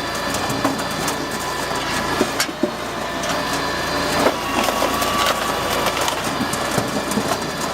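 KS 40S firewood processor running with a steady machine drone while it works logs. Wood cracks and splinters in frequent sharp snaps throughout.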